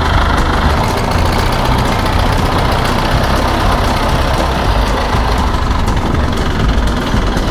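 Strong wind buffeting the microphone: a loud, continuous, gusting rumble.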